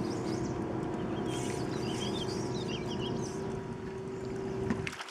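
A boat motor running with a steady hum that cuts off abruptly just before the end, with birds chirping over it.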